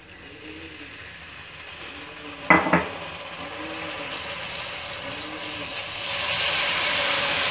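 Chopped onions and green chillies frying in oil in a steel pot, sizzling hard just after a little water has gone in, with stirring. Two sharp knocks come about two and a half seconds in, and the sizzle grows louder near the end.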